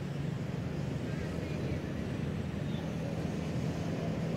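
Steady low engine drone, with a few faint bird chirps above it.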